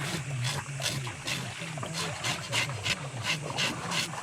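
Scales being scraped off a Murray cod from the tail upwards, in quick rasping strokes about three a second. A low wavering hum runs underneath.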